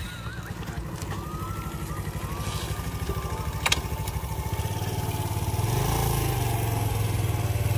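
Suzuki motorcycle engine running at a low idle, then picking up revs and growing louder about two-thirds of the way in as the bike is edged forward. A single sharp click comes a little past halfway.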